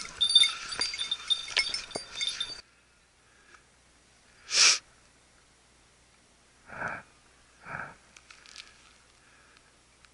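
Small metal bell, of the kind hunting dogs wear, ringing and jangling. It cuts off suddenly about two and a half seconds in. After that it is near quiet, broken by one short loud rustle and two softer ones, with a faint ringing near the end.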